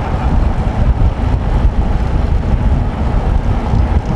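Wind buffeting the microphone while moving alongside a recumbent bicycle at speed: a loud, steady, low rumble with no distinct tones.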